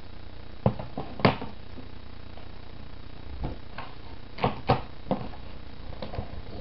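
Handling noise from a plastic DVD case: a scattered series of short clicks and knocks in small clusters, over a steady background hiss.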